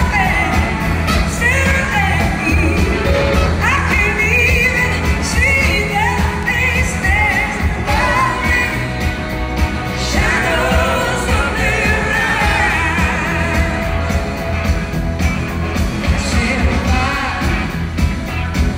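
Live band playing a rock song, a woman singing lead over electric guitars, drums and bass, heard from the audience in a large hall.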